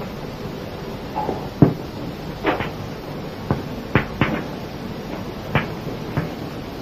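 Chalk tapping and scraping on a blackboard as symbols are written: about ten irregular sharp taps, two of them longer scratchy strokes.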